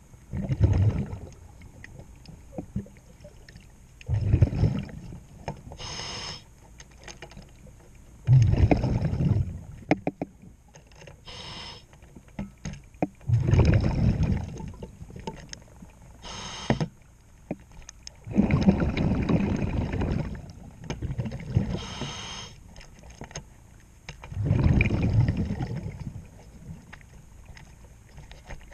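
A scuba diver breathing through a regulator underwater. A short hiss on each inhale is followed by a rumbling rush of exhaled bubbles, six breaths about five seconds apart.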